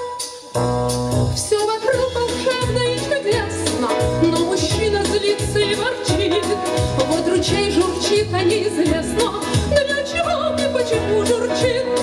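Women's vocal ensemble singing a wordless melody over an instrumental accompaniment with a steady bass beat. The music drops out briefly at the start, then comes back in.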